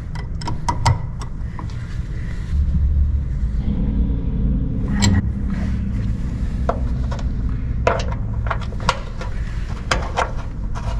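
Scattered light metal clicks and clinks as an open-end wrench tightens the flexible brake hose's fitting into a front disc brake caliper, with the hose being handled, over a steady low rumble.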